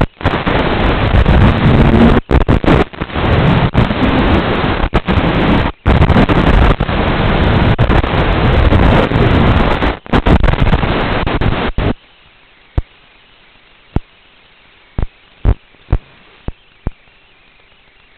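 Harsh, loud rushing noise from an FPV racing quadcopter's onboard audio while it flies: motors, props and wind, cutting in and out in short dropouts. About 12 seconds in it stops abruptly and drops to a faint hiss with a few sharp clicks, as the quad crashes into brush and its motors stop.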